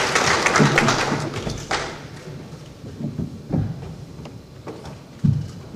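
Audience applause dying away over the first two seconds, then a few scattered thumps and knocks, the loudest about five seconds in.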